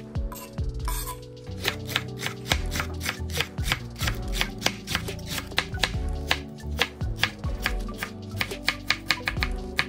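Chef's knife chopping cabbage on a wooden cutting board: quick, regular knocks of the blade through the leaves onto the board, coming faster near the end, over background music.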